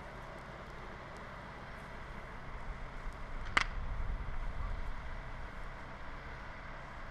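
A vehicle engine runs with a steady low rumble, with faint crackling from burning dry brush. A single sharp crack stands out about halfway through, and the rumble swells briefly after it.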